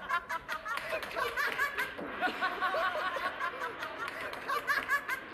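Young men laughing hard together, a continuous run of short, repeated laughs with no words.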